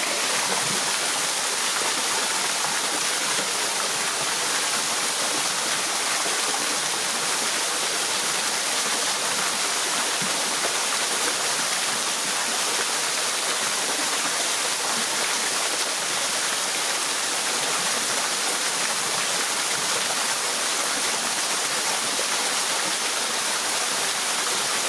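Steady rush of a rainforest creek and waterfall, water running over rocks.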